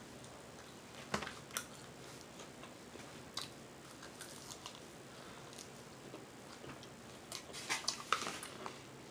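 A person chewing and biting food, faint, with scattered short mouth clicks and a closer run of them near the end.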